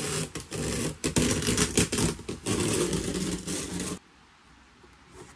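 Rapid scraping and crinkling of a paper towel as excess caulk is wiped off fingers onto it, with many quick clicks, stopping abruptly about four seconds in.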